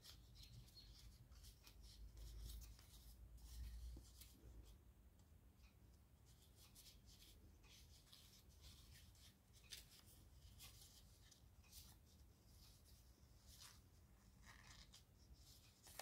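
Faint rustling and crinkling of origami paper being folded and creased by hand, in short scattered crackles, with a low rumble about two to four seconds in.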